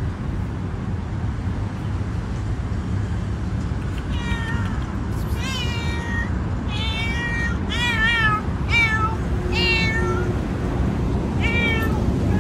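Domestic cat meowing loudly and repeatedly: about seven meows in quick succession beginning about four seconds in, each bending in pitch, over a steady low background rumble.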